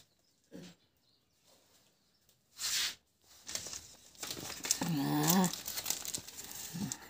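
Rustling and crinkling of a woven plastic bag and the paper and plastic packets inside it as hands rummage through it, with a short loud rustle a little under three seconds in and steadier crinkling through the second half. A brief voice-like call sounds about five seconds in.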